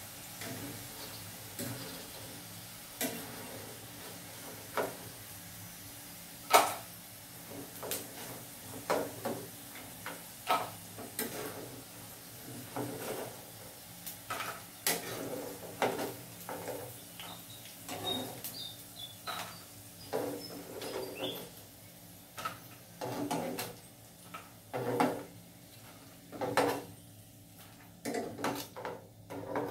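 Metal tongs clacking and scraping against a nonstick frying pan and a plate in many short irregular knocks as fried food is lifted out, over a soft frying sizzle that fades near the end.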